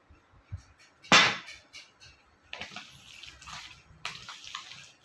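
Hands squishing and kneading oily, masala-marinated beef chops in a plastic bowl: irregular wet squelching strokes from about halfway in. Before that, one loud sharp knock about a second in.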